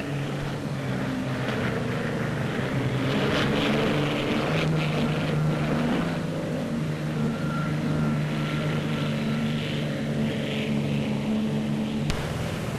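Racing motorboat engines running at speed: a steady, many-toned drone with a rush of noise over it, its pitch shifting a few times as the boats pass.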